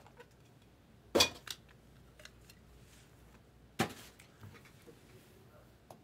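Stacks of trading cards being set down and handled on a table: two sharp clacks, about a second in and just before four seconds, with lighter ticks and taps between.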